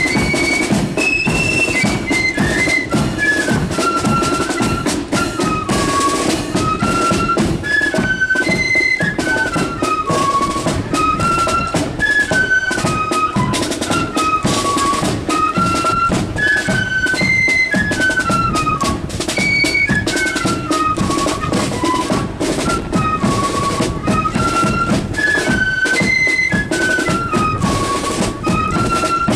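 Marching flute band playing a repeating tune on flutes over snare drums and a bass drum, heard from among the marching players.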